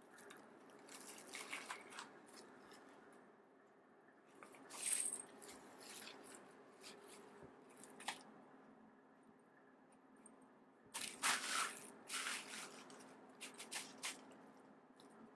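Plastic bubble wrap crinkling and rustling in irregular bursts as a cat paws at it, pushes its head into it and drags it, the loudest bursts about five seconds in and again around eleven to twelve seconds in. A faint steady low hum runs underneath.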